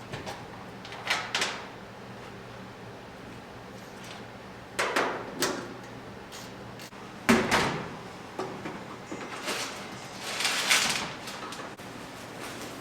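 Sheet-metal truck bed panels being handled and fitted: a series of irregular metal clanks, knocks and scraping rattles, loudest a little past the middle, over a steady low shop hum.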